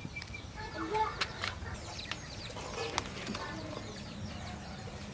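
Chickens clucking in short, scattered calls, with a couple of sharp clicks about a second in and again about three seconds in.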